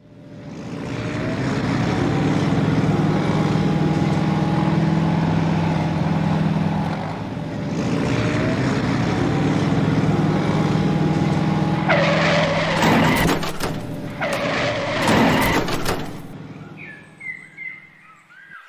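Steady engine drone for a toy wheel loader driving, dipping briefly about seven seconds in and then starting again. Around twelve seconds in come two loud bursts of rushing noise, and a few short chirps near the end.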